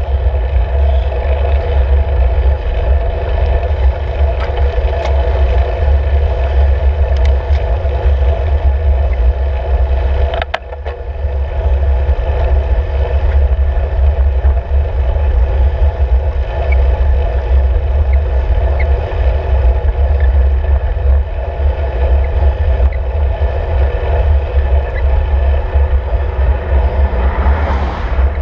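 Steady low rumble of wind and road vibration picked up by a handlebar-mounted camera on a road bicycle riding on asphalt, with a few faint clicks. The rumble dips briefly about ten seconds in.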